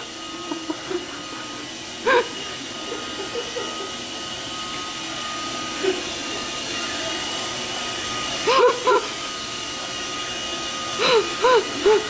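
Roomba robot vacuum running, a steady hum with a faint whine. Short high-pitched yelps break in about two seconds in, twice around nine seconds, and several times near the end.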